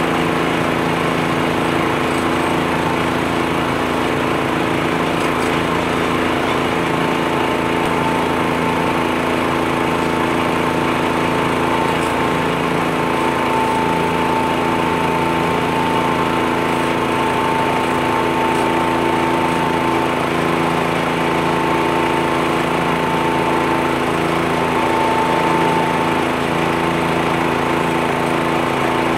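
Front-mounted tractor leaf blower running steadily, its small gas engine and fan blasting air across a leaf-covered lawn, with a compact diesel tractor's engine under it. A thin high whine joins about seven seconds in.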